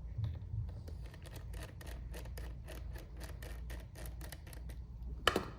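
A screwdriver backs out small screws from a plastic clock assembly: a quick, even run of light clicks, about five a second, then one sharper clack near the end.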